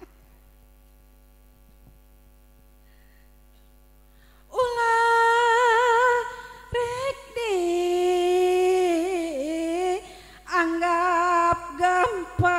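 A woman sings a Sundanese sawer chant into a PA microphone after a few seconds of only a faint steady hum. The chant is long held notes with a wavering ornament, the melody stepping down partway through, with two short breaks.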